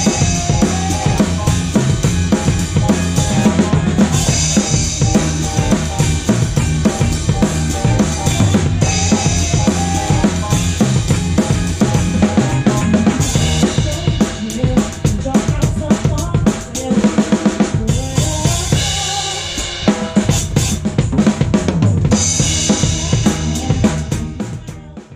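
Drum kit played with a band: kick drum, snare and rimshots driving a fast groove under cymbal crashes, with pitched band instruments beneath. The music fades out near the end.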